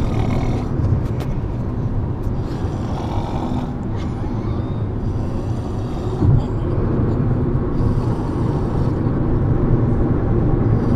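Heavy snoring: a rasping breath about every two to three seconds, over a steady low rumble.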